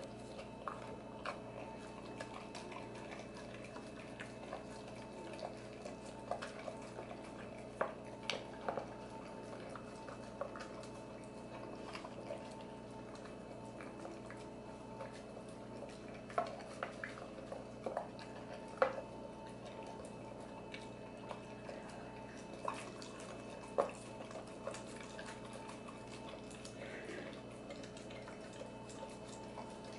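An XL American Bully eating raw meat from a stainless steel bowl: wet chewing and licking with irregular sharp clinks and clicks against the bowl, over a steady hum.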